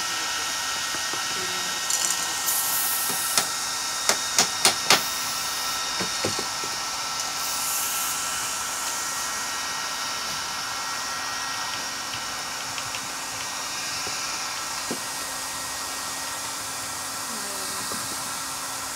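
Aerosol spray paint cans hissing in short bursts over a steady background hiss, with a handful of sharp clicks in the first five seconds.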